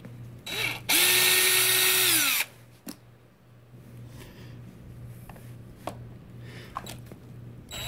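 Cordless drill spinning out a small screw from an RC truck's chassis: a short blip, then a steady whine for about a second and a half that winds down as the trigger is released. A few light clicks follow over a low steady hum.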